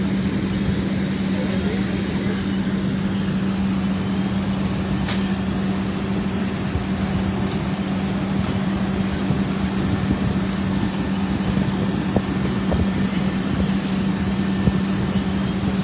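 Engine running steadily at constant speed, a low drone with an unchanging hum.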